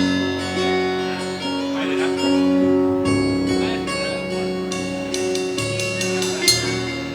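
Live band playing music at a sound check: sustained notes over a bass line, with a sharp hit about six and a half seconds in.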